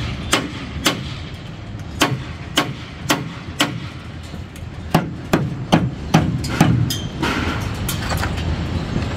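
Hammer blows on column formwork: a dozen or so sharp, irregular strikes, about one or two a second, over a low rumble of site noise.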